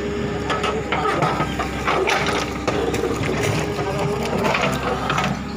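JCB 3DX backhoe loader's diesel engine running steadily while it digs, with irregular knocks and clanks throughout.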